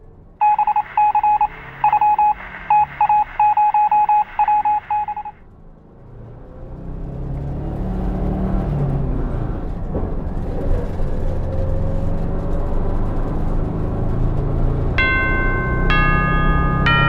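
A phone's electronic beeping, one high tone pulsing rapidly in quick groups for about five seconds. After that comes the low rumble of a moving bus, and near the end a few bright synth-like music notes come in.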